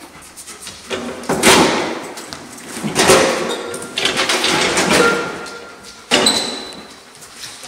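Thuds and rattling as a leather suitcase is set into a plastic toy wagon and the wagon is moved: three loud spells of knocking and scuffing, the last one starting abruptly about six seconds in.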